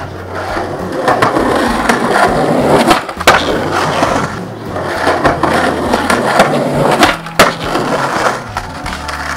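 Skateboard wheels rolling over rough concrete with a steady rush, broken twice by a sharp clack of the board, about three seconds and seven seconds in.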